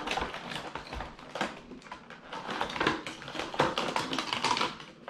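Clear plastic doll packaging clicking and crinkling as hands work an accessory loose from its moulded tray: a run of irregular taps and rustles.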